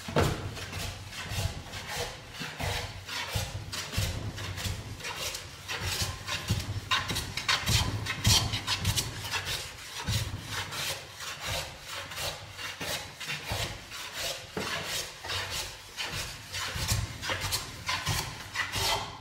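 Veritas bevel-up smoother, a cast-iron hand plane, pushed in repeated strokes across a wooden board, each stroke a short hiss of the blade slicing off a shaving.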